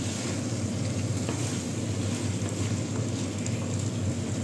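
Beef balls in a thick sauce sizzling steadily in a nonstick frying pan while being stirred with a wooden spatula, with a few faint scrapes and taps.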